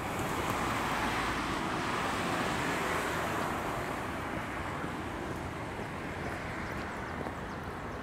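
Road traffic: a vehicle passing, its tyre and engine noise swelling over the first few seconds and then slowly fading, over a steady hum of traffic.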